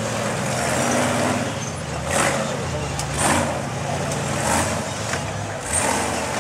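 Engine of an off-road rock-racing buggy running low and revving up in about four short bursts as it climbs over boulders.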